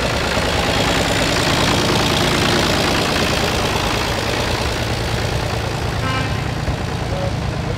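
Vintage tractor engine running at low speed as the tractor drives past, loudest about two seconds in and easing off as it moves away.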